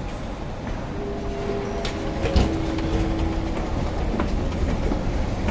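Steady low rumble of metro station machinery and rail noise, with a sharp knock about two and a half seconds in and a faint steady whine through the middle.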